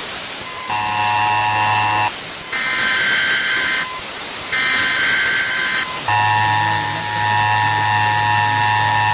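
Emergency broadcast alert tones over a steady static hiss: a low, harsh buzzing tone, two higher-pitched tones of about a second and a half each, then the low buzzing tone again, held longer.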